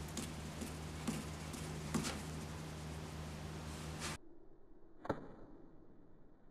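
A pine fidget spinner flicked by fingers, a few light clicks over a steady low hum. The hum cuts off suddenly about four seconds in, and one sharp click follows a second later.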